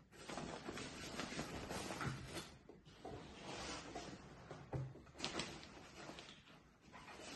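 Rustling and handling of clothes and a nylon sports bag, with a couple of soft thumps and a sharp click about five seconds in as items are set down.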